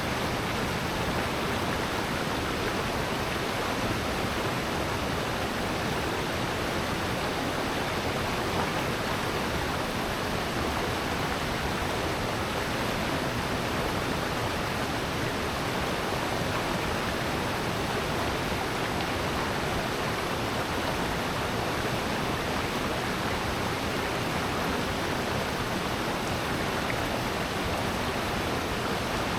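Rushing water of a mountain stream in a gorge, a steady even rush with no breaks or changes.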